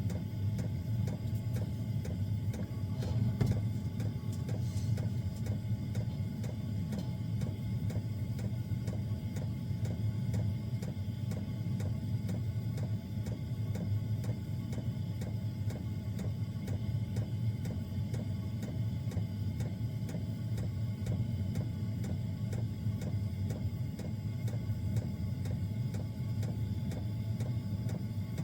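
Small diesel air heater running: a steady low hum from its combustion fan and burner, with faint regular ticking from its fuel pump.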